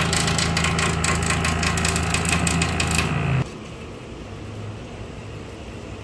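Premaire PTAC unit's fan running with a loud steady hum and a rapid clicking rattle from its fan blade, which is cracked and starting to break. The noise cuts off suddenly about three and a half seconds in, leaving a quieter low hum.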